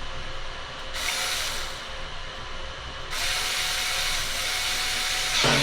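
Electric drill-driver running in two bursts, a short one about a second in and a longer, steady one of about two seconds, followed by a knock near the end.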